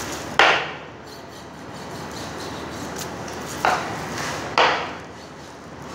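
Three short thuds of a raw leg of lamb being turned over and set down on a plastic cutting board, one about half a second in and two close together near the end, over steady background noise.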